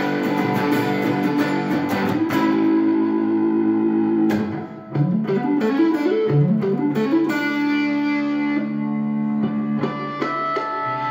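Electric guitar played with a capo: chords ringing out, a brief drop about four and a half seconds in, then notes sliding up in pitch twice, with higher notes ringing near the end.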